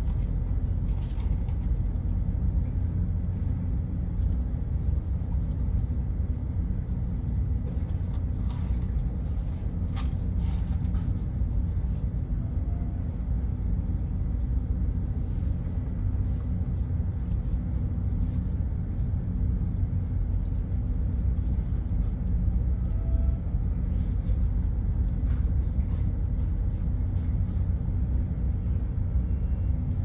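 Ship's machinery running: a steady low rumble with a faint high tone above it, and a few faint clicks.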